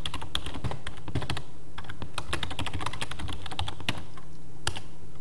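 Typing on a computer keyboard: a quick run of keystrokes entering a web address, broken by two short pauses.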